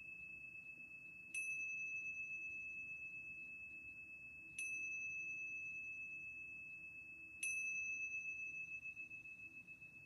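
Tingsha cymbals struck together three times, about three seconds apart. Each strike rings out in a long, high tone that fades slowly with a pulsing beat, still ringing when the next strike comes.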